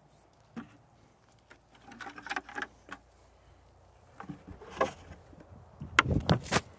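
Plastic bucket and lid being picked up and handled: irregular clunks, rustles and knocks, with footsteps on a wooden deck. A cluster of louder, sharp knocks comes near the end.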